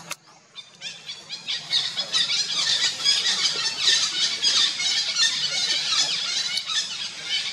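Monkeys squealing: many high, rapid squeals overlapping one another, starting about a second in and going on without a break.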